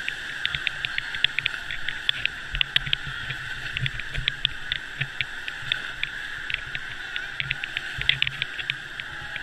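Wave-pool water surging and splashing: a steady rush of churning water with a dense, irregular crackle of small splashes and spray.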